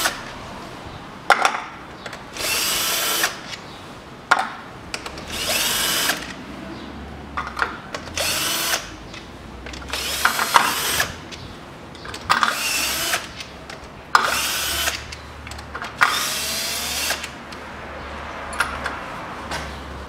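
Cordless drill-driver with a 10 mm socket running in short runs of about a second, about seven times, as the valve-cover bolts are spun out one after another. Short clicks of metal sound between some of the runs.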